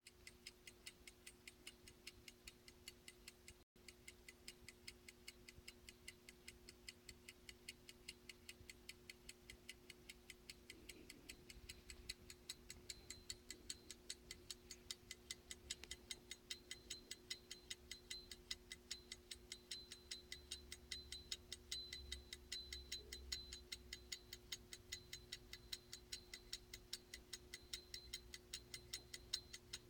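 Ticking of an 1870s stopwatch's escapement as the movement runs: a fast, even train of light ticks that grows a little louder about twelve seconds in, with a faint ringing note over the ticks.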